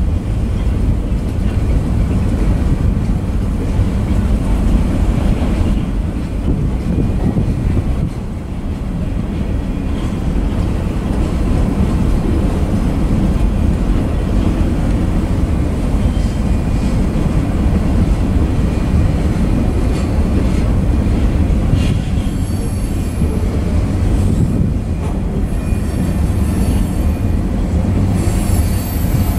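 Freight cars of a manifest train rolling past, a steady rumble of steel wheels on rail. In the last third, high-pitched wheel squeals come and go several times.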